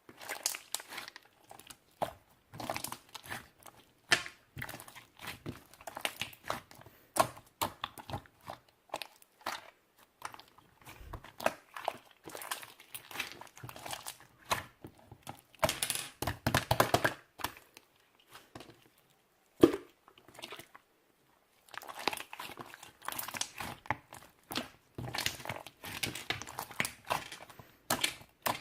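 Close-up crunching and crinkling: dense, irregular crackles in clusters with short pauses, and one sharp click a little past halfway.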